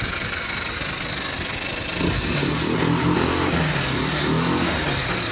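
Scooter engine running, revved up about two seconds in and held at higher revs, then easing back toward idle near the end.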